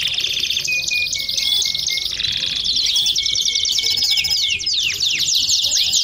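Domestic canary singing: an unbroken run of fast, high trills and rolls, with a few quick downward-sliding notes in the second half.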